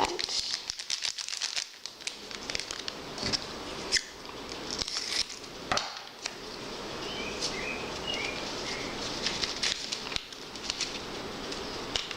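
Plastic candy-kit packets crinkling and rustling in the hands as they are opened and their powder poured into a tray, in many small crackles. A few faint bird chirps come in from outside between about seven and nine seconds in.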